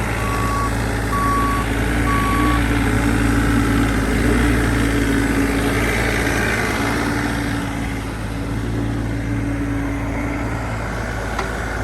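Bobcat E42 mini excavator's diesel engine running steadily with a droning hum, as the machine tracks. A travel alarm beeps about once a second for the first two to three seconds, then stops.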